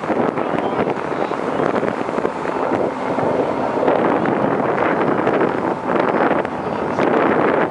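Wind buffeting the microphone aboard a moving passenger ferry, a steady rushing noise that swells and dips, with the ferry's engine and water noise underneath.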